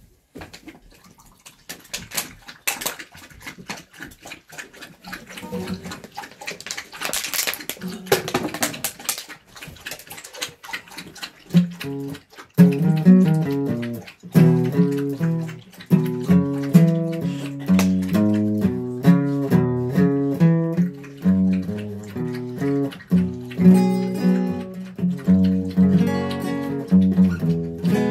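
Scattered clicks and rustling for about the first eleven seconds, then a guitar played in a run of single picked notes that steps up and down, thickening near the end.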